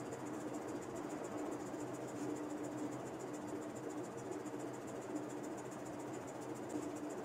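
Faint steady background noise with a continuous high-pitched, rapidly pulsing trill like an insect's, and a wavering low hum underneath.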